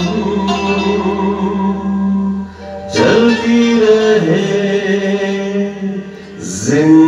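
A man singing a Hindi film song into a microphone, holding long notes, with a fresh phrase starting about three seconds in and another near the end.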